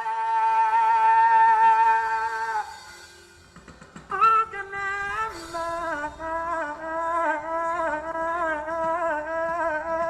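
A voice singing or humming long wordless notes in a worship setting. The first is held steady and fades out after about two and a half seconds. After a short pause a second, lower note swells in and is held with a wavering pitch to near the end.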